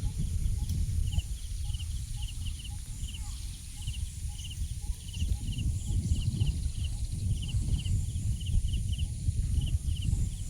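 Outdoor ambience: short high chirps repeating irregularly, often in twos and threes, over a steady high-pitched drone and a loud low rumble.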